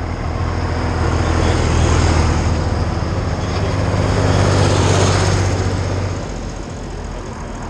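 Vintage tractor engines running as the tractors drive past along the road. The engine note is loudest about five seconds in and drops away soon after.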